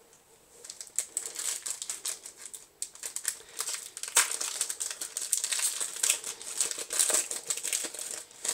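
Foil wrapper of a Yu-Gi-Oh! booster pack being torn open and peeled back from the cards, a dense irregular crinkling that starts about half a second in.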